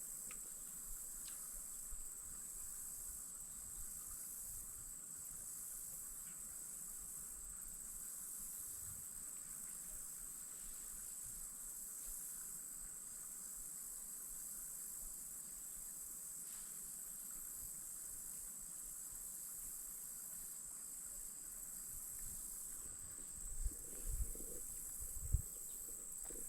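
Steady, high-pitched chorus of insects buzzing without a break, with a few low knocks near the end.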